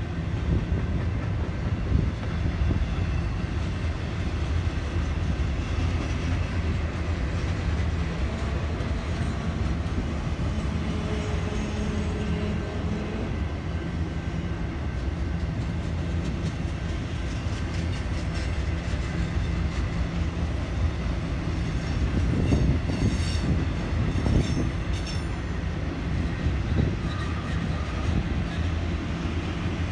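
Intermodal freight train's loaded container cars rolling past: a steady rumble of steel wheels on rail. About two-thirds of the way through comes a brief cluster of high-pitched wheel squeals and clicks.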